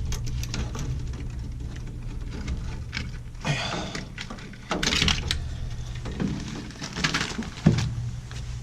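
Scattered clicks, knocks and short rustles of hands working on a furnace control board, unplugging and handling wire connectors and parts, over a steady low hum.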